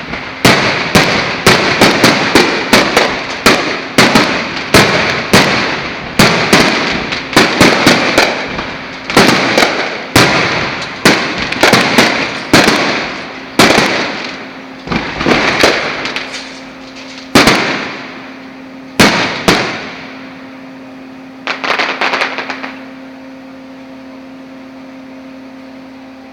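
Fireworks going off: a long run of sharp, loud bangs, about one or two a second, spacing out toward the end, then a short burst of crackling before it dies down.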